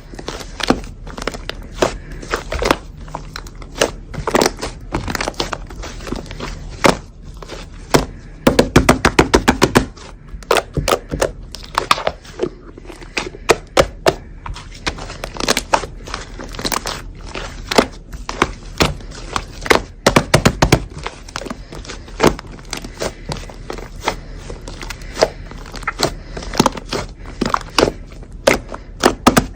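Slime being squeezed, pressed and poked by hand, giving irregular crackling clicks and pops, thickest about a third of the way in.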